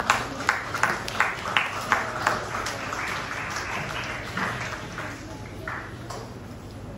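A small audience applauding, with separate sharp claps at first that merge into a denser patter and die away near the end.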